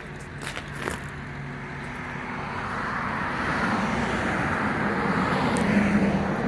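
A vehicle engine running and growing steadily louder, its hum rising a little in pitch and peaking near the end. A few sharp clicks come about half a second to a second in.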